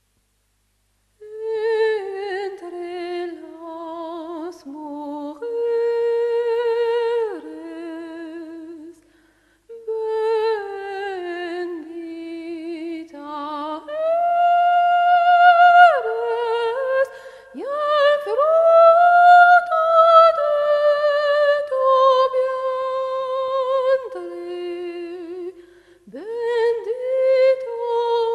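A single high voice humming a slow, wordless melody: long held notes with vibrato, sliding between pitches, in phrases with short pauses.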